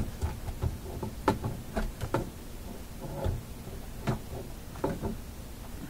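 Scattered light clicks and knocks from handling a digital multimeter and a radio volume-control potentiometer clipped to test leads.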